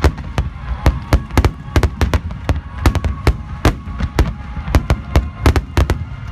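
A wide-front barrage of aerial firework shells bursting in quick succession: sharp bangs about four a second over a continuous low rumble of overlapping booms.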